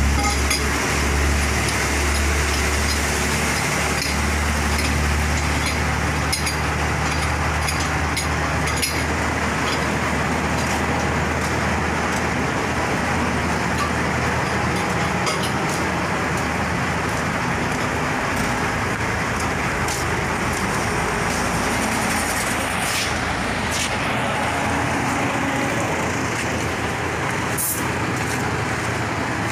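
Truck running on the road, a steady mix of engine and road noise. A deep low hum is strongest for the first few seconds, then eases.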